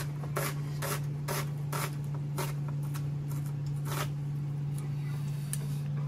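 Repeated scraping strokes of a kitchen utensil, about two a second at first and then only now and again, over a steady low hum.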